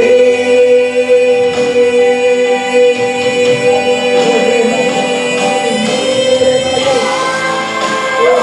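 Gospel worship singing: voices hold one long sung note over the accompanying music.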